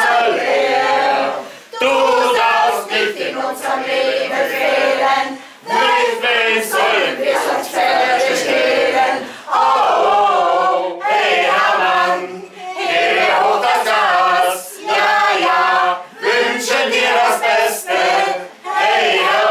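A mixed group of men and women singing together in unison, in short phrases with brief breaks between them, with no instruments heard.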